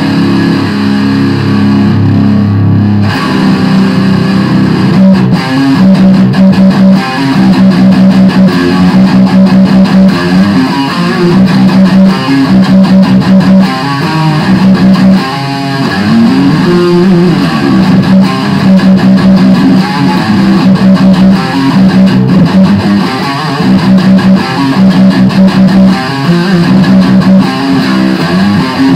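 Loud distorted electric guitar, an Epiphone SG Special through a Line 6 Spider III amp, improvising heavy-metal riffs: fast repeated low notes in short phrases, with a note sliding up and back down a little past halfway.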